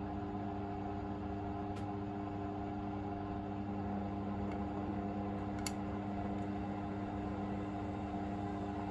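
Hoover VisionDynamic washing machine in its final spin, drum and motor running steadily with an even hum. A sharp click about halfway through.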